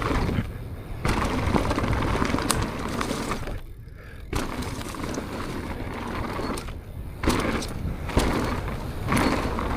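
Propain Tyee mountain bike descending a rough trail at speed: a steady rush of wind and tyre noise with scattered sharp clicks and knocks as it rattles over bumps, easing off briefly about four seconds in.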